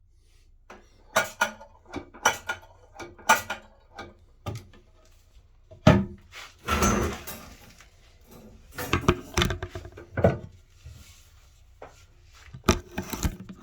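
A series of sharp knocks and clunks of handling, with a short hiss lasting about a second around the middle.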